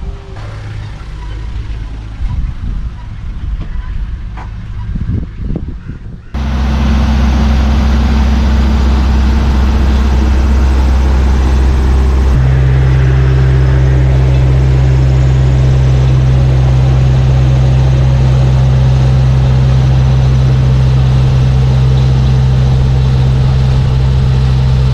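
Small two-stroke 360cc Daihatsu Hijet engine running loud and steady at an even speed. It cuts in abruptly about six seconds in, after a quieter stretch of low rumble and a few knocks, and its note shifts slightly around halfway through.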